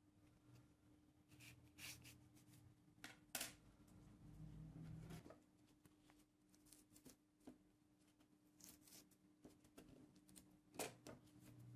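Faint, scattered clicks and short scraping strokes of hand work, with a duller low rumble about four to five seconds in, over a faint steady hum.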